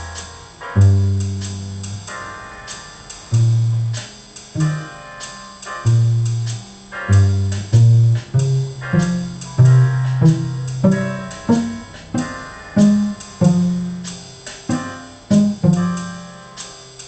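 Piano playing struck chords over low bass notes at a steady, moderate pace, each note sounding sharply and then fading.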